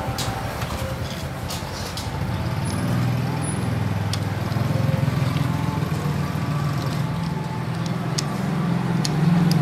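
A vehicle engine running, louder from about two seconds in and loudest near the end, with a few light metallic clicks early on.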